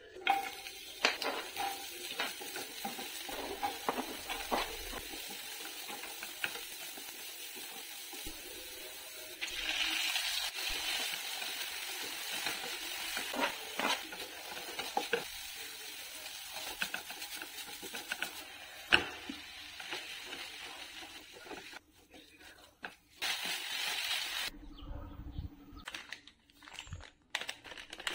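Diced vegetables sizzling in oil in a nonstick pan while a spatula stirs them, with scattered clicks of the spatula against the pan. The sizzle grows louder about ten seconds in and stops about three-quarters of the way through.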